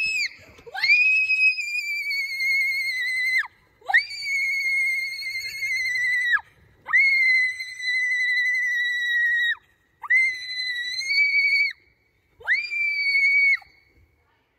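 A girl screaming in long, very high, held screams as she rides down a tube slide: one ends just at the start, then five more follow, each a couple of seconds long with a short breath between.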